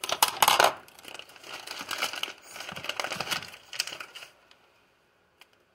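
Clear plastic bag crinkling and rustling as hands rummage in it, with a few small clicks, stopping about four and a half seconds in.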